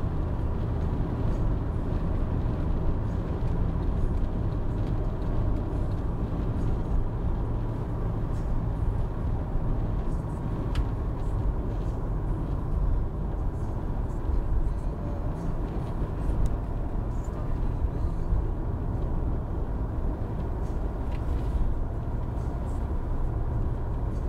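Car engine and tyre noise heard from inside the cabin while cruising on a highway: a steady low drone.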